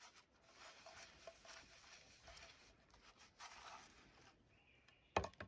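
Faint rustling and scraping of things being handled, then a few sharp knocks about five seconds in.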